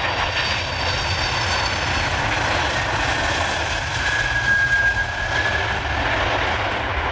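Antonov An-124 Ruslan landing, its four turbofan engines giving a steady jet roar. A high whine comes up about four seconds in as it rolls out on the runway.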